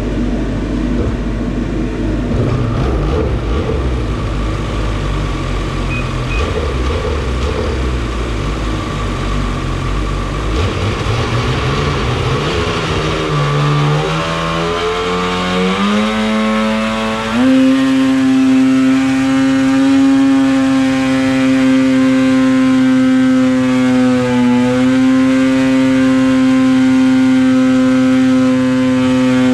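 Rotax 800 E-TEC two-stroke twin snowmobile engine on a dyno, running roughly at low revs, then climbing in steps over several seconds and held at about 7,800 rpm under load for the last dozen seconds, with a couple of brief dips. It is a power run on 2% extra fuel.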